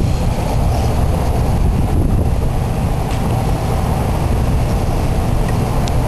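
Wind buffeting the microphone: a steady, fluttering low rumble, with a faint tick near the end.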